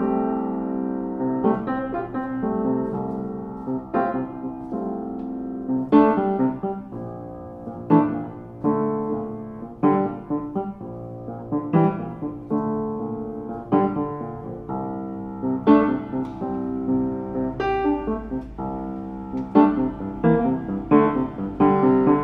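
Ritmüller RS-series acoustic upright piano played by hand: a continuous piece of chords and melody, each note struck and left to ring under the next.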